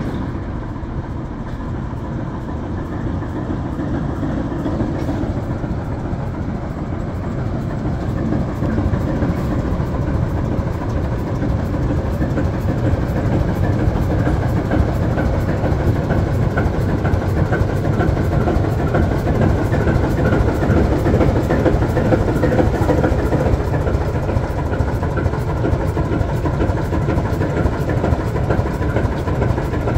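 1946 ALCO S1 switcher's six-cylinder 539 diesel engine running as the locomotive rolls slowly out of the engine house and past, growing louder about a third of the way in.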